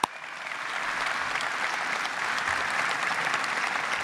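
Audience applause that swells over the first second and then holds steady. It opens with one sharp hand clap close to the podium microphones.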